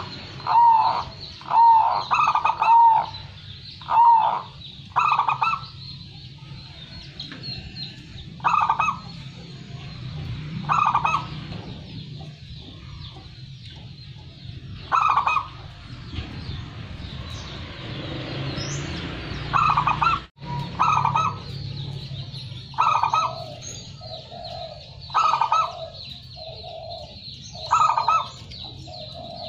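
Zebra dove (perkutut) cooing again and again in short rhythmic phrases every couple of seconds. The phrases come close together at first, pause for a few seconds around the middle, then resume, over a faint steady low hum.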